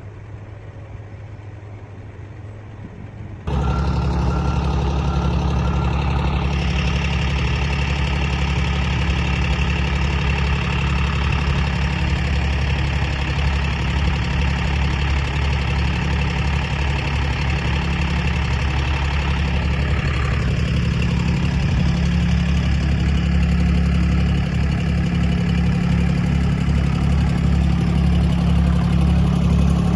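A vehicle engine running steadily at a low, even speed. It becomes much louder suddenly about three and a half seconds in, then holds steady.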